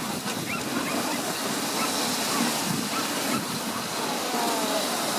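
Dog sled gliding over glacier snow: a steady rushing hiss from the runners on the snow and the air going past, with a few faint short high cries scattered through it.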